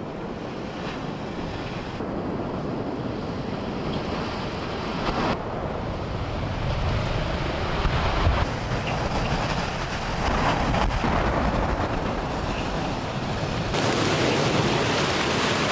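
Continuous heavy rumbling roar of a reinforced-concrete hyperbolic cooling tower collapsing after its implosion, with wind buffeting the microphone. The sound changes abruptly about five seconds in and again near the end.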